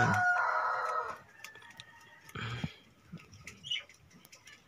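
A rooster crowing nearby, its call fading out about a second in, then faint scattered clicks and rustles.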